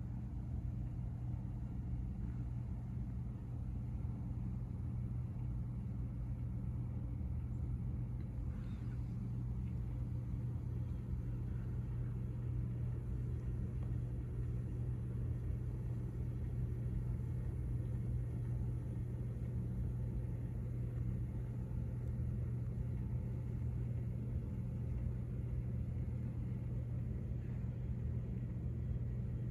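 Steady low hum with a rumble beneath it, unchanging throughout.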